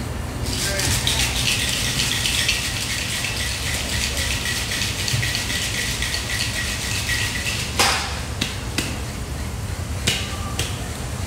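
Ice rattling hard inside metal cocktail shakers as two bartenders shake drinks, a fast, dense rattle lasting about seven seconds. The shaking stops with a sharp knock near the eight-second mark, followed by a few scattered clicks.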